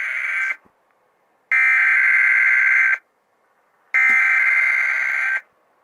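Emergency Alert System SAME header: bursts of shrill, buzzing digital data tones carrying the coded alert message that opens a broadcast alert. One burst ends about half a second in, and two more follow, each about a second and a half long, with a second's pause between them.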